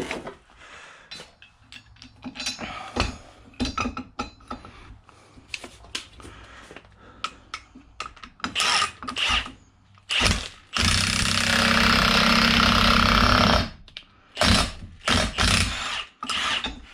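Scattered metal clinks and knocks of tools being handled, then a power tool runs hard for about three seconds, followed by a few more sharp clanks.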